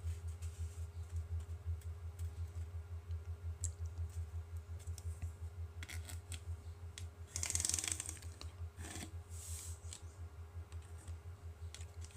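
Pencil scratching along the rocket booster tube while marking fin-slot lines, in a few short scratchy strokes in the second half, the longest about seven seconds in, over a steady low hum.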